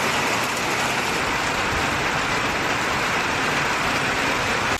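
Heavy rain pouring down: a steady, even hiss of a downpour.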